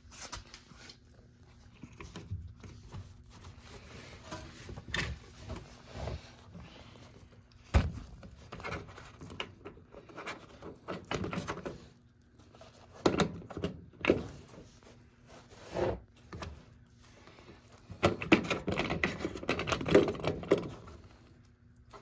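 A towel being rustled and pushed around by hand, with scattered knocks and thuds against the washing machine's plastic front panel. The handling is busiest near the end.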